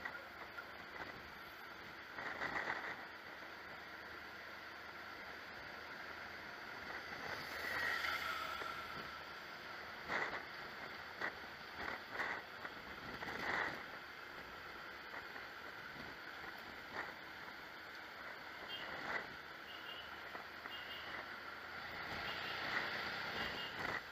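Motorcycle running at low speed, heard from its own seat, with steady wind noise on the microphone and several short louder bursts.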